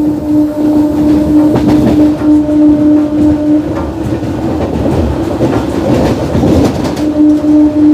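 MEMU electric train horn honking non-stop in a rapid string of short blasts, over the clickety-clack of the passing train. About three and a half seconds in the horn breaks off, the wheel clatter is loudest, and the honking starts again near the end.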